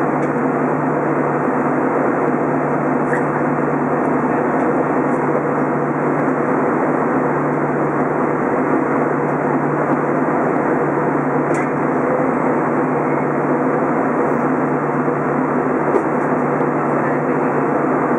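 Steady cabin drone of an Airbus A320 in flight, heard from a window seat beside the engine: jet engine and airflow noise with a constant low hum.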